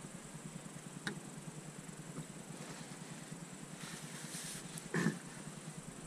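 A man wiping his nose and mouth with a paper napkin: soft rustling, then one short loud blow or sniff into the napkin about five seconds in, over a steady low hum.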